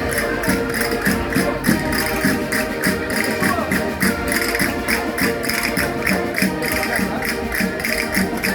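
Concertinas playing a fast folk dance tune, over an even percussion beat of about four or five sharp strikes a second.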